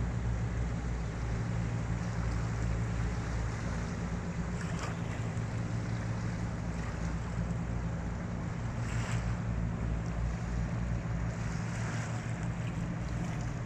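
Steady low drone of a boat engine under a haze of wind and water noise, with a few short gusts of wind on the microphone.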